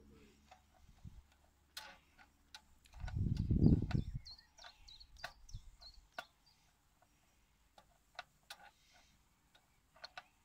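Irregular small clicks and taps from hand work with a small tool, with a short, loud low rumble about three seconds in.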